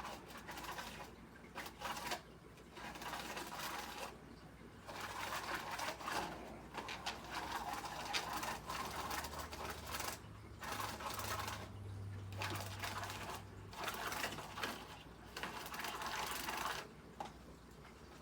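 A plastic spirograph gear, with a pen in one of its holes, is driven around a toothed ring on paper: the teeth click and the pen scratches in long continuous stretches broken by short pauses.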